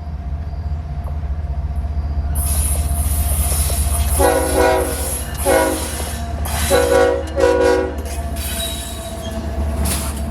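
Horn of a Norfolk Southern diesel locomotive in Norfolk & Western heritage paint, sounded in four blasts over the low rumble of the locomotive's diesel engine, with the last two blasts close together. A high squeal of wheels on rail starts a couple of seconds in and runs under the horn.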